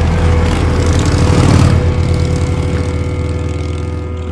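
Bagger motorcycle's V-twin engine pulling away loudly: it surges as the throttle opens about a second in, then fades steadily as the bike rides off.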